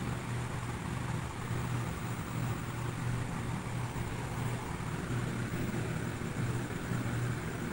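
A steady low mechanical hum, like a motor running continuously.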